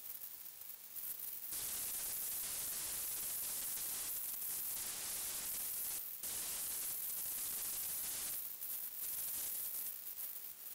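Steady static-like hiss that comes up sharply about a second and a half in, dips for a moment in the middle, and drops back near the end.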